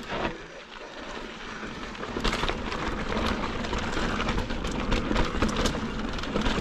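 Mountain bike rolling over loose gravel and rock: tyres crunching, with many rattling clicks and knocks from the bike over the rough ground, getting louder about two seconds in.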